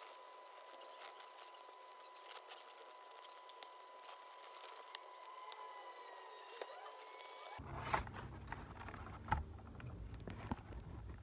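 Fingers handling a cardboard box and its clear plastic tray: soft crinkles, rubbing and light taps, with a few sharper clicks of the plastic in the last few seconds.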